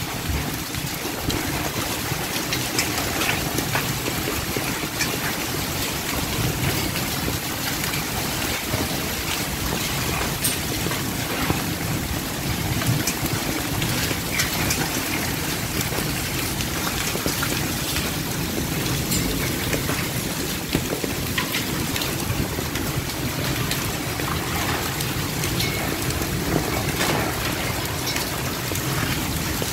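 Heavy rain falling steadily: a dense, even hiss with scattered sharp ticks of drops striking nearby surfaces.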